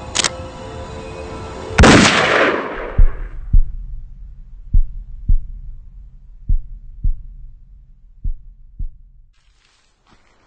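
A single loud gunshot about two seconds in that rings out and cuts off the music, followed by a slow heartbeat: four double beats, one every couple of seconds, fading away.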